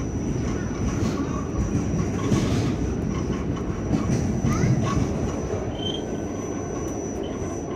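R46 subway car running along the track, heard from inside the car: a steady low rumble of wheels on rail, with a thin high whine held throughout and a few brief squeals.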